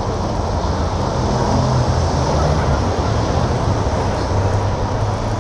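Wind buffeting the microphone of a bicycle rider's camera while riding, with road and traffic noise: a loud, steady rush heaviest in the low rumble.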